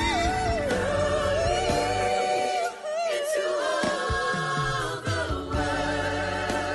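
Gospel song: a singer holds long notes that slide and waver, over steady backing music. The loudness dips briefly about a third of the way in.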